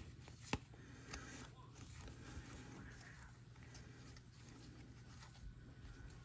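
Faint handling of trading cards: soft rustling with light ticks as cards are slid and flipped, and one sharper click about half a second in.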